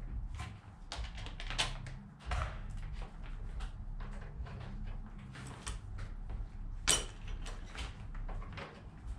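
Hand tools and metal engine parts clinking and knocking as a 1999 GMC Suburban's engine is taken apart, with one sharp, ringing metal clink about seven seconds in. A steady low hum runs underneath.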